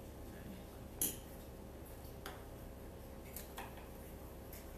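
Hand pruning shears snipping through flower stems: a few short, sharp clicks, the loudest about a second in.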